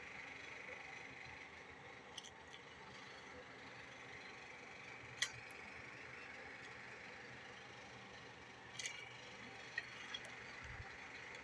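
A utensil stirring soup and noodles in a slow cooker's crock, with a few sharp clicks of the utensil against the crock, the loudest about five seconds in, over a faint steady hiss.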